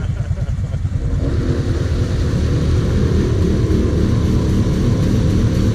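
ATV engines running: the steady low throb of a quad idling close by, with an engine revving up about a second in and holding as a quad stuck in a mud hole spins its wheels in the water.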